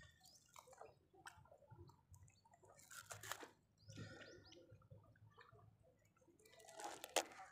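Faint, scattered wet handling sounds of a fishing net with a freshly caught fish in it: water drips and small splashes as the mesh is worked by hand to free the fish.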